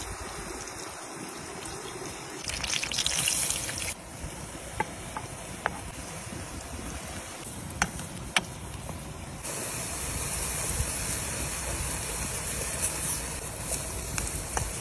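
Food hissing in a metal pan over a wood fire, with a few sharp clicks of a wooden spoon against the pan as the chopped vegetables are stirred. The hiss changes level abruptly a few times.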